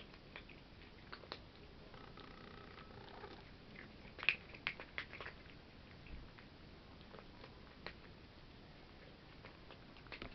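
Cats chewing and crunching food at the floor: quiet, irregular clicks, with a cluster of louder ones about four to five seconds in.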